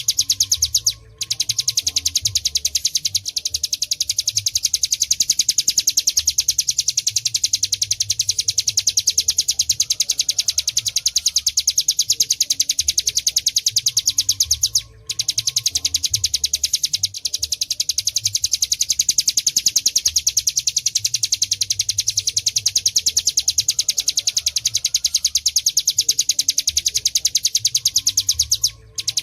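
Ciblek gunung (mountain prinia) singing a fast, unbroken run of high, even chirps, the vigorous nonstop song used as a tutor recording for songbirds. The song breaks off briefly about a second in, again about halfway through, and near the end.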